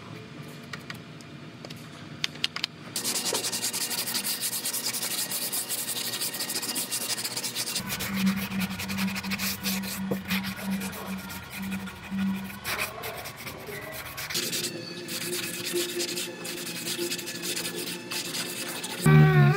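Hand sanding of body filler on a car's quarter panel with a sanding block: continuous scratchy rubbing strokes starting about three seconds in, after a quieter start with a few light clicks.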